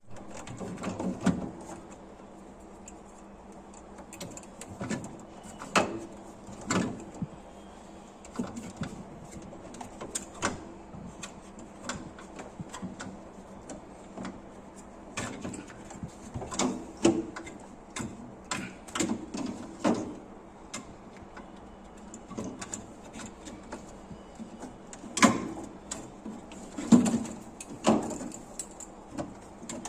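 Irregular knocks, clicks and clatter of handling work on a refrigerator, over a faint steady hum.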